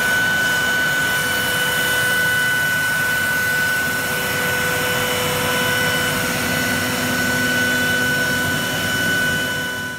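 Techno HD CNC router running a surfacing pass on its MDF spoilboard: the spindle and cutter make a steady high whine over the rush of the dust collection and vacuum hold-down.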